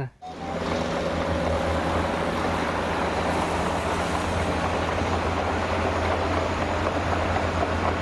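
Heavy dump truck's diesel engine running steadily as a low, even drone while the truck's bed is raised to tip its load of sand.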